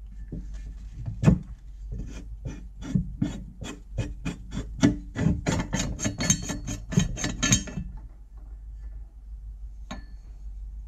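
Rusty cast-iron retaining ring of a vintage hand-crank meat grinder being unscrewed by hand: a run of gritty scraping clicks, about three or four a second, as the rusted threads grind against each other. The scraping stops a while before the end, followed by a single light click.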